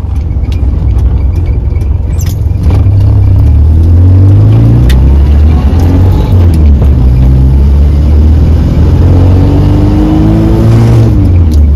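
Morris Minor's four-cylinder engine pulling away through the gears, its note rising under acceleration and dropping at each gear change, about five seconds in and again near the end.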